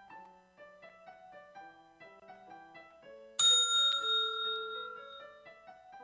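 Soft piano-like background music with a single bell strike about three and a half seconds in. The bell is the loudest sound and rings out, fading over about two seconds. It is a signal-bell sound effect telling candidates at a practical exam's rotating stations to move on to the next station.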